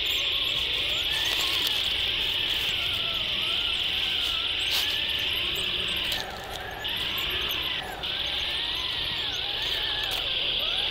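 Torro 1/16-scale RC Sturmtiger model tank driving, its electric drive motors and gearboxes whining, the pitch rising and falling with speed and steering. The whine drops out briefly twice a little past the middle.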